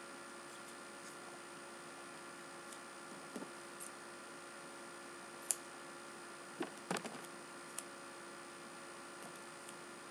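Steady electrical hum, with a few soft clicks and short rustles of black tape and scissors being handled while taping around an eyeglass lens; the sharpest click comes about halfway through, and a small cluster follows a second later.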